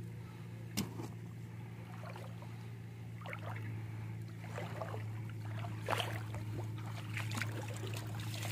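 A steady low hum, like a distant motor, runs throughout, with scattered sharp taps and clicks, the clearest about a second in and about six seconds in.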